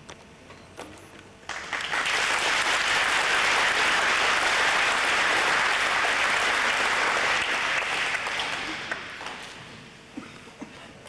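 Applause from a seated group of students clapping. It starts suddenly about a second and a half in, holds steady, then dies away over the last few seconds.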